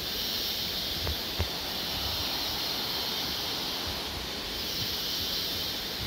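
Steady high-pitched hiss of rainforest ambience that swells and fades slowly, with a couple of soft footsteps on the walkway about a second in.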